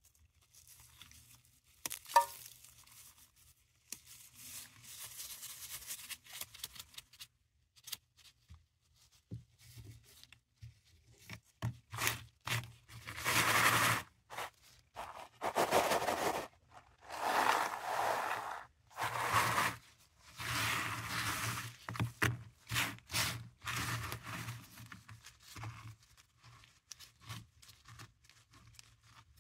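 Paradichlorobenzene mothball tablets being crushed and ground to powder in a rubber-gloved hand: gritty crunching and scraping in irregular bursts, loudest in the second half, with one sharp click about two seconds in.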